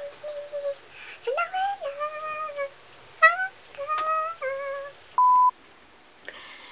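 A woman singing unaccompanied, a slow melody in long held notes without clear words. A little past the middle, a short steady electronic beep sounds.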